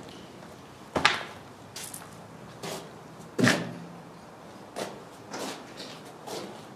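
Footsteps crunching over rubble and debris on a concrete floor, about seven uneven steps. The strongest fall about a second in and about three and a half seconds in.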